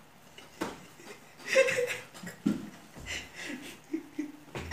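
Stifled laughter from two men, hands over their mouths: short, muffled snickers and chuckles in separate bursts, with a sharp click about half a second in and another near the end.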